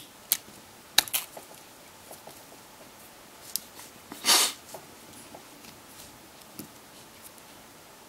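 Sharp clicks and ticks of small plastic and metal smartphone parts being handled and pressed together while an LG G2x is put back together. About four seconds in there is a brief, louder hissing rush.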